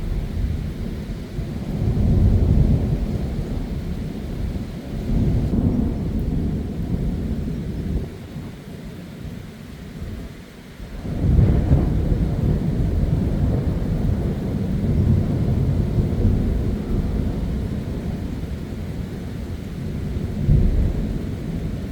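Thunder rumbling over heavy rain, in several surging rolls. About halfway through a sharper clap breaks in and is followed by a long rolling rumble.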